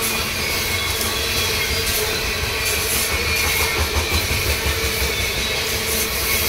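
Loaded coal hopper cars of a freight train rolling past: a steady rumble of steel wheels on the rails, with thin, steady squealing tones from the wheels running through it.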